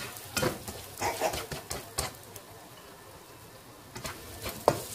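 Spatula scraping and knocking against a nonstick wok while stir-frying rice: a scatter of sharp knocks, a quieter lull in the middle, then a loud knock near the end.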